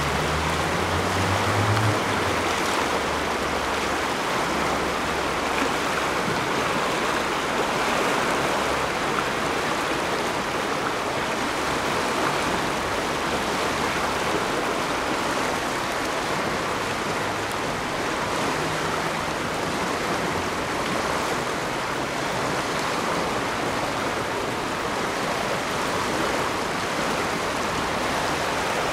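Floodwater of a swollen river rushing past the bank and churning over a standing wave: a steady, unbroken rushing of turbulent water, the river running high after heavy rain.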